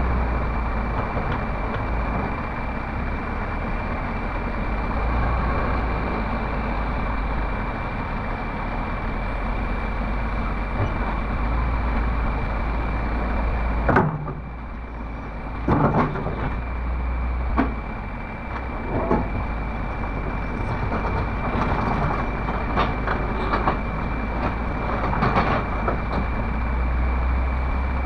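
Komatsu hydraulic excavator's diesel engine running steadily at low throttle as the machine swings and lowers its boom and bucket, with a few sharp metal clanks from about halfway on. The engine struggles and stalls at full throttle, which the operator puts down to overheating or a blockage he is not sure of.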